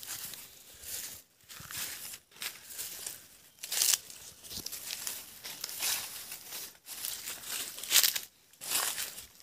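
Irregular rustling and crackling of leaves and brush as a person moves through dense undergrowth, with louder brushes about four seconds in and about eight seconds in.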